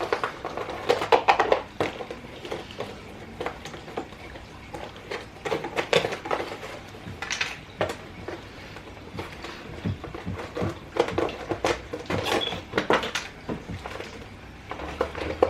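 Hands working on an RC car's plastic retail packaging, undoing the fastenings that hold the car in the box: bunches of sharp clicks, rattles and scrapes, with short pauses between them.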